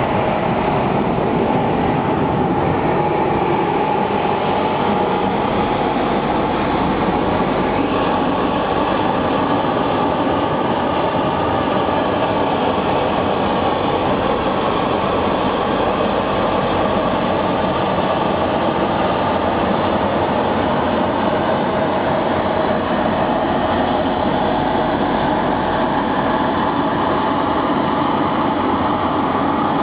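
Brushless (touchless) gantry car wash machine running around a car: a loud, steady machine noise with a few steady tones held throughout.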